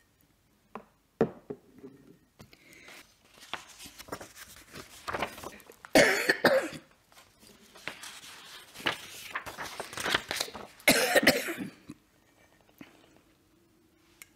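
An elderly woman coughing and clearing her throat repeatedly, in a string of fits with the loudest about six and eleven seconds in. A couple of sharp knocks come about a second in.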